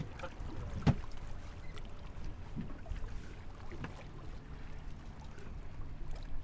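Wind and small waves lapping against the hull of a small boat, with one sharp knock about a second in and a few fainter knocks later.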